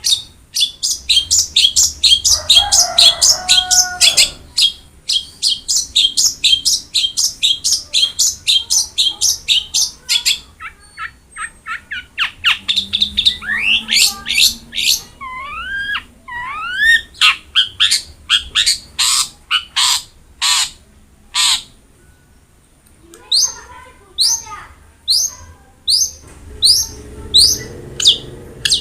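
Long-tailed shrike (cendet) singing: a fast run of sharp, high repeated notes, about four a second, then a varied phrase with upward-sweeping whistles, and later slower loud chips about two a second.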